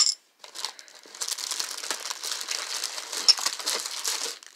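Crumpled packing paper and plastic bags crinkling and rustling as hands rummage through a box of packed items, after a short sharp knock at the very start.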